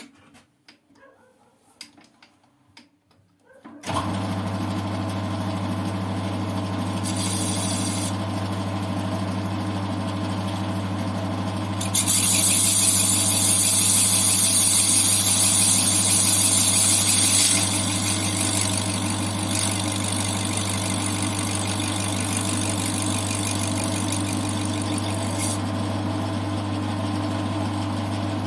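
CJM280 bench lathe switched on after a few light clicks, starting suddenly about four seconds in and running with a steady hum. A louder hissing, scraping sound of work on the spinning part comes in briefly around seven seconds and again for about five seconds from twelve seconds in.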